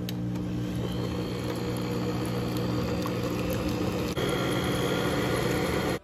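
Sunbeam Mixmaster stand mixer running, its twin beaters whirring through cupcake batter: a steady motor hum that steps up slightly in level about four seconds in.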